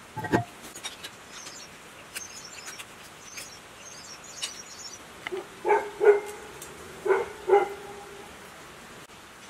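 A dog barking, four or five short barks from about five and a half seconds in, with faint small-bird chirps before them and a single knock at the very start.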